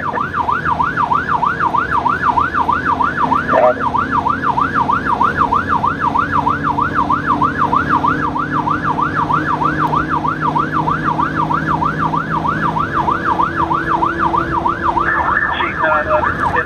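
Emergency vehicle's electronic siren in yelp mode, a fast wail rising and falling about two and a half times a second, sounding on a fire response run. Under it an engine drones, stepping up in pitch as the vehicle speeds up, and another steady blare joins briefly near the end.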